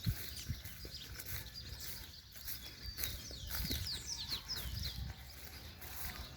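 Outdoor ambience with a steady low rumble and a low thump at the start. About halfway through, a bird gives a quick run of short, high, downward-sweeping notes.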